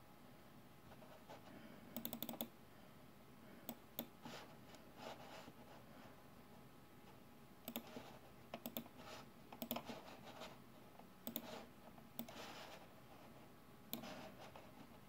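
Faint, scattered clicks of a computer mouse and keys, often in quick runs of two to five, over quiet room tone.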